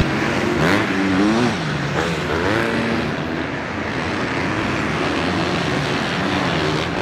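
Motocross race bike engines revving, their pitch rising and falling with the throttle, several glides close together in the first couple of seconds, then a steadier running drone.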